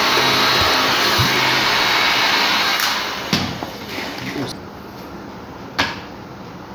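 Electric hot-air blower running with a steady rush of air, then winding down about three seconds in. Two sharp knocks stand out, one just after the blower starts to fade and a louder one near the end.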